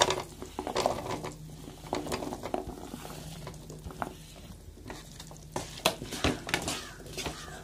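Halved lovi-lovi fruits tipped into a non-stick pan of thick pickle masala and stirred with a wooden spatula: scraping and a scatter of sharp knocks and clicks of the spatula against the pan, over a low steady hum.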